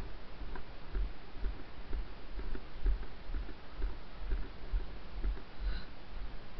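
Footsteps of a person walking on a wet grass and mud field track, a steady walking pace of about two dull thuds a second.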